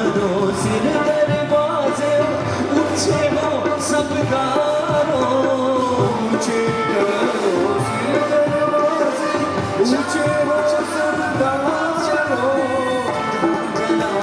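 Live worship band playing a Punjabi psalm song, with a singing voice over the instruments.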